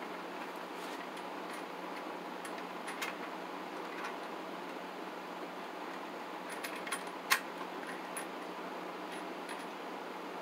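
Small clicks and clinks of a Romex cable connector being worked into the knockout of a plastic weatherproof electrical box by hand, with one sharper click about seven seconds in, over a steady background hiss.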